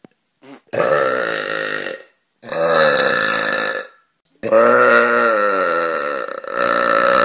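A girl burping, three long, deep burps one after another, each a second or more, the last drawn out for over three seconds.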